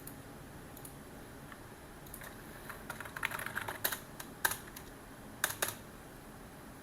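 Typing on a computer keyboard: a quick flurry of keystrokes about two seconds in, then a few separate key presses, over a faint steady hiss.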